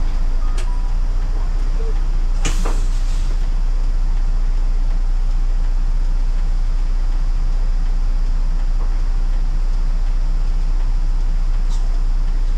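City bus engine idling with a steady low rumble, heard from inside the bus while it waits at a red light. A short sharp noise about two and a half seconds in.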